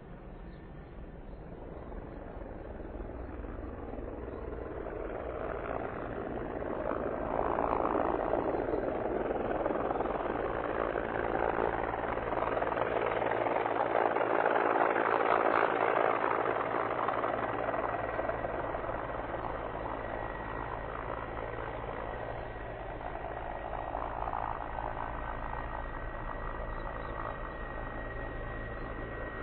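Mi-35M twin-turboshaft military helicopter running, its rotor and engine noise growing louder toward the middle and then easing off. A steady high turbine whine comes in over the second half.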